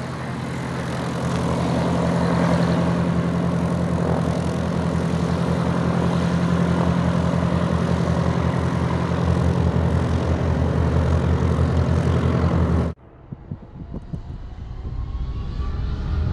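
Single-engine light plane's piston engine and propeller running as it taxis, a steady drone with a strong low hum. About 13 seconds in it cuts off abruptly, and a fainter, more distant engine sound then builds up again.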